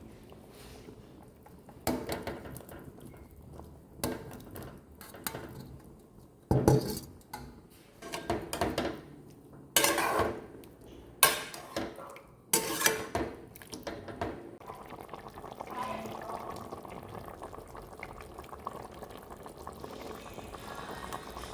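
Pots, pans and metal utensils clattering while cooking: a string of sharp clanks and scrapes at irregular intervals, then a quieter steady noise for the last several seconds.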